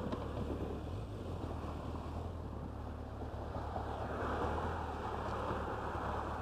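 Motorcycle engine running at low speed, a steady low drone, with wind noise on the microphone that grows louder about four seconds in.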